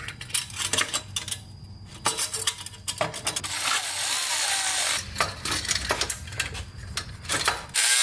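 Metal clanks and knocks from a stainless exhaust crossover pipe being fitted up under a truck, with a cordless ratchet whirring for about a second and a half midway and starting again near the end as the pipe's band clamp is snugged.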